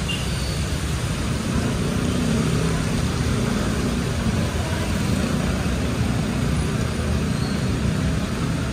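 Steady city street noise: motor traffic running close by, a low rumble with an even hiss of rain over it.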